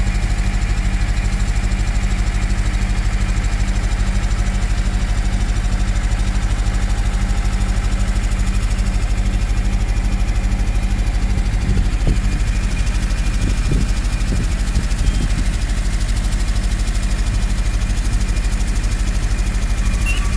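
Steady low drone of an idling engine, running evenly, with a rougher, busier stretch a little past the middle.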